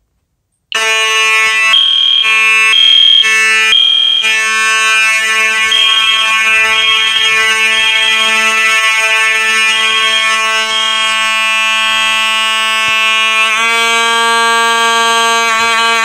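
Loud fire alarm horns sounding from a pulled pull station. A steady buzzing electromechanical horn runs under a higher horn tone that pulses in the temporal-three pattern: three beeps, then a pause. About 13.5 s in, the tone turns brighter and starts to waver.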